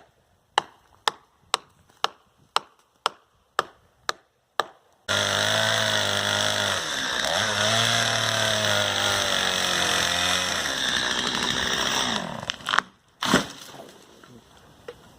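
Sharp knocks about two a second, then at about five seconds a Stihl MS 192T chainsaw cuts in suddenly, revving as it cuts for about seven seconds. Near the end come two heavy thuds as the cherry tree comes down.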